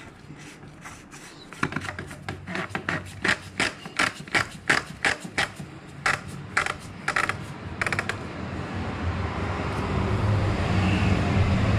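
Oil filter housing cap being screwed down by hand onto its housing, giving a run of irregular sharp clicks and scrapes. After about eight seconds the clicks stop and a rising rushing noise follows as a rag is rubbed around the housing.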